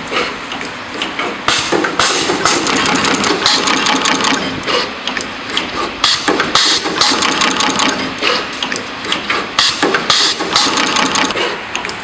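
Automatic wire stripping, twisting and soldering machine running: a steady clatter of its clamps and slides with many sharp clicks, and short hisses of air from its pneumatic actuators recurring every second or so.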